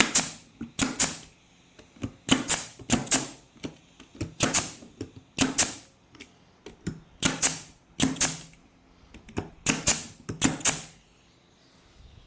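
An 18-gauge brad nailer firing about ten times, loosely in pairs, each a sharp snap, driving 3/4 inch brads through a thin plywood backer into wood.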